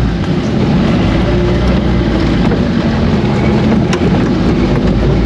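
Suzuki Samurai's 1.3-litre four-cylinder petrol engine running steadily as the open-topped 4x4 crawls over rough forest ground, heard from inside the cabin, with a light click about four seconds in.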